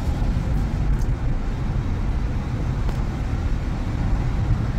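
Steady low rumble of a car driving along a street, heard from inside the car.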